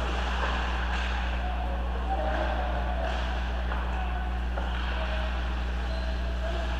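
A steady low hum with faint, indistinct distant voices and an occasional light knock.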